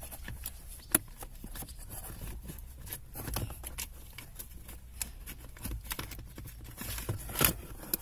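Plastic clicks, scrapes and rustling of hands working a car's cabin heater blower fan and its wiring loose from the fan housing under the dashboard. Irregular small clicks throughout, a sharp click about a second in and a louder knock near the end.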